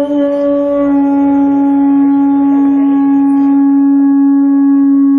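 A conch shell blown as a horn, sounding one long steady note held without a break.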